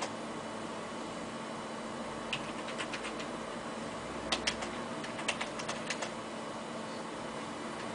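A cooling fan runs steadily with a faint hum, broken by irregular sharp clicks in two clusters: a few about two to three seconds in, and a denser run from about four to six seconds in.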